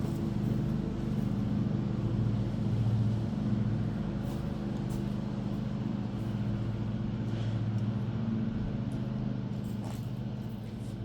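A vehicle engine running with a steady low hum, with a few faint clicks and rattles over it.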